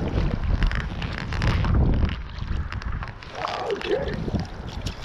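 Wind buffeting the body-mounted microphone with a low rumble, over the rush of shallow river water around the wading angler's legs, with scattered clicks and rustles from handling the landing net.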